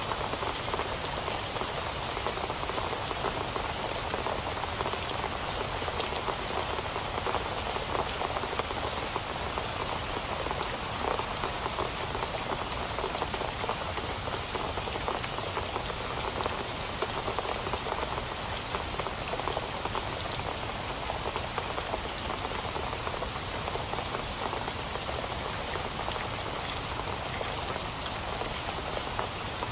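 Steady rain falling and pattering on a surface, an even rush with many fine drop ticks and no thunder.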